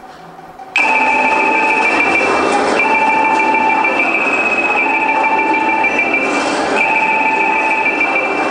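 A loud electronic sound effect in the dance routine's backing track cuts in suddenly about a second in, played over the hall's speakers: two steady high tones held together, repeating in cycles of about two seconds with brief breaks between them, like a ringing or train-like effect.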